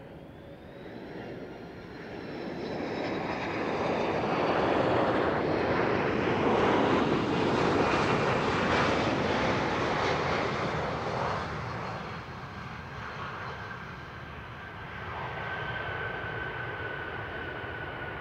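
Airbus A330-200 twin-jet airliner passing low on final approach and flaring to land: the jet engine noise swells to a peak about halfway through, then fades, swelling slightly again near the end. A high engine whine drops in pitch in the first few seconds as the aircraft approaches.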